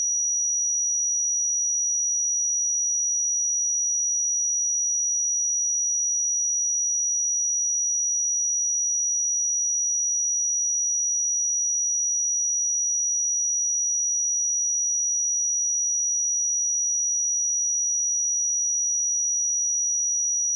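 A steady pure sine-wave test tone at 5812 Hz, a single high-pitched whistle-like pitch held unchanging at constant level.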